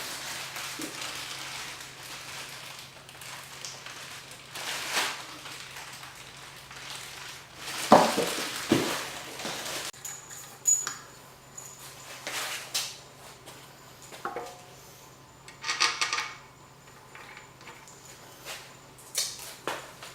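Metal parts clinking and knocking while an engine's cylinder head and head bolts are handled, with the loudest knock about eight seconds in and a ringing clink a little after halfway.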